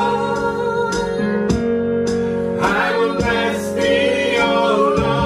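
Gospel worship song: voices holding and bending notes over sustained keyboard chords, with a few soft drum hits.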